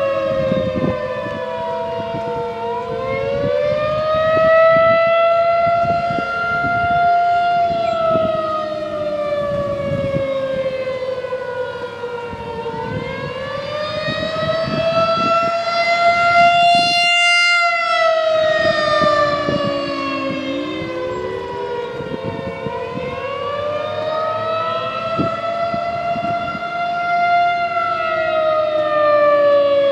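Federal Signal 2001-SRN outdoor warning siren sounding the attack signal: a loud wailing tone that slowly rises and falls in pitch, a few seconds up and a few seconds down, over and over.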